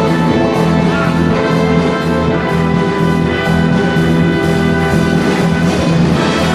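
Live orchestra playing an upbeat number with brass to the fore over a steady beat.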